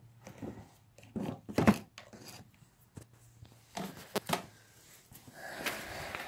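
Handling noise from the opened portable power station: a string of light, irregular clicks, taps and knocks, then a softer rustling near the end.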